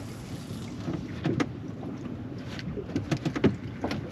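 Irregular knocks and clunks aboard a small fishing boat, several in a cluster near the end, over a steady low rumble of wind and water.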